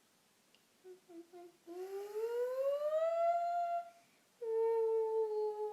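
A voice humming in a wordless, whimpering way: three short hums, then a long hum that slides upward, then a steady held hum near the end.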